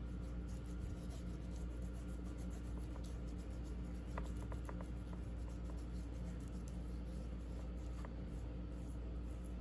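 Hands rubbing dry seasoning into raw chicken breasts on a wooden cutting board: soft scratchy rubbing with a few light ticks, over a steady low background hum.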